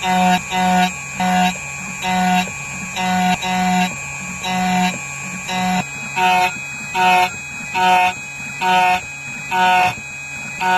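Background music: a plucked-string, guitar-like tune of short notes in a steady rhythm, about one or two notes a second.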